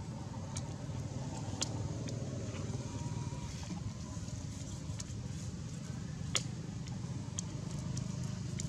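Steady low background rumble, with a few sharp clicks scattered through it.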